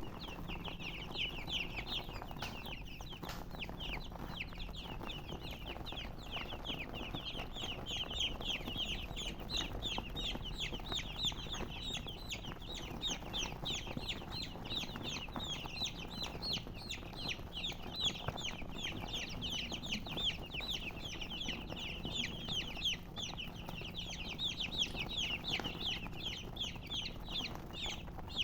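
A group of baby chicks chirping continuously: a dense stream of many short, high-pitched, falling peeps overlapping one another.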